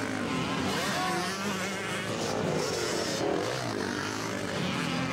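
Several dirt bike engines revving at once, their pitch rising and falling as the bikes race around the track and over the jumps.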